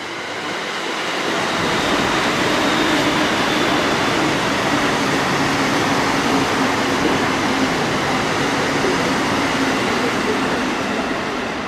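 A Keikyu N1000-series electric train approaching and running along the track, with wheel and rail noise and a steady motor hum. It grows louder over the first couple of seconds, holds, then eases slightly near the end.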